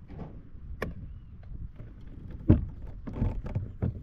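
Irregular knocks and clunks of gear being handled on a plastic pedal kayak, the loudest a sharp knock about two and a half seconds in and a quick run of them near the end, over a low rumble.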